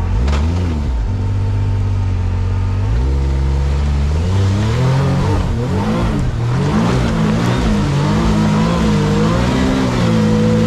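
Can-Am Maverick R side-by-side's turbocharged three-cylinder engine running at a steady pitch, then revving up and down in many quick rises and falls as the throttle is worked.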